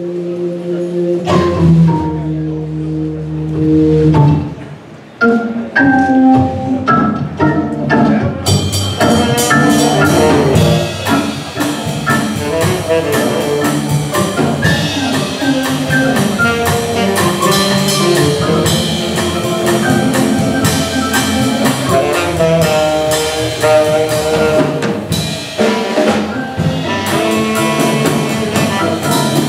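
Jazz trio of organ, saxophone and drums playing. Held chords open, the level drops briefly about five seconds in, and from about eight seconds in the drums and cymbals come in with the full band.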